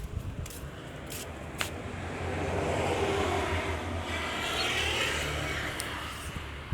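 A road vehicle passing by: its noise swells for a few seconds and fades away again, over a steady low hum.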